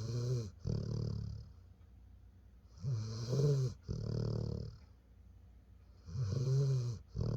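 A senior yellow Labrador snoring in deep sleep: three rasping snoring breaths about three seconds apart, each a pitched snore on the breath in followed by a shorter breath out.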